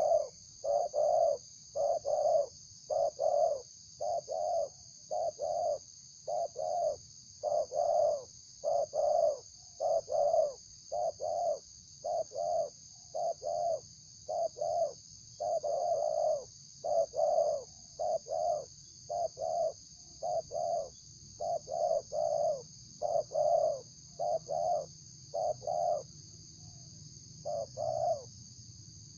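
Spotted dove (tekukur) cooing in a long, vigorous series of short low coos, about one to two a second, in quick groups, with a brief pause near the end.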